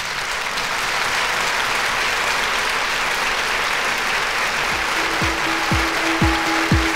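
Audience applauding. About five seconds in, music comes in under the applause, with a held note and a steady low beat about twice a second.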